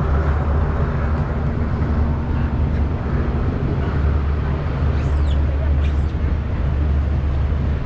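Steady low rumble of outdoor town street ambience, with one brief high squeak falling in pitch about five seconds in.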